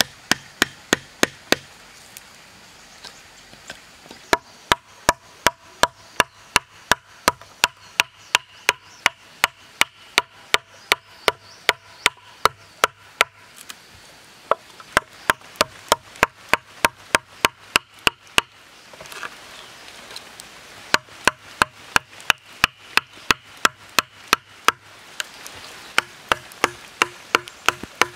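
Wooden club striking a chisel to hollow out a log. Runs of sharp knocks come about three a second, with short pauses between the runs.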